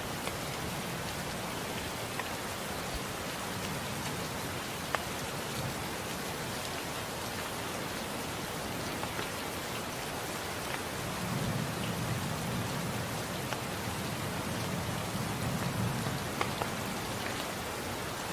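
Steady rain with single drops ticking close by. A low rumble of thunder swells up a little past the middle and dies away.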